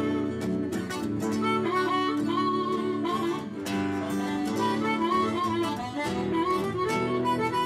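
Harmonica playing a melody over strummed acoustic guitars.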